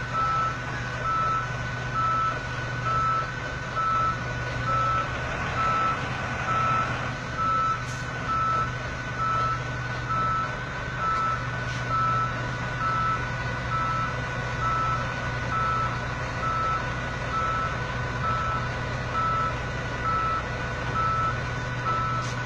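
A vehicle reversing alarm beeping steadily at one pitch, about once a second, over the continuous low running of a heavy engine.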